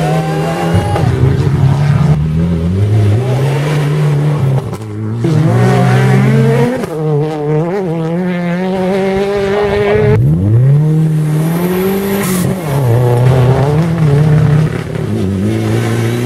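Rally cars at full throttle passing one after another, engines revving hard and dropping back in pitch at each gear change.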